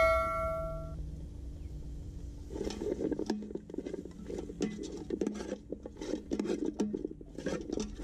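Metal ladle stirring chopped bird meat in an aluminium pot, clinking and scraping against the pot in a quick irregular run from about two and a half seconds in. At the start, a ringing metal tone from the pot fades out within the first second.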